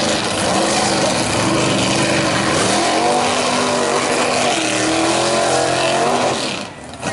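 Big-block V8 of a Mazda-bodied mega mud truck running hard at high revs as it churns through a mud pit. Its pitch climbs about two and a half seconds in and then wavers. The sound drops off sharply near the end.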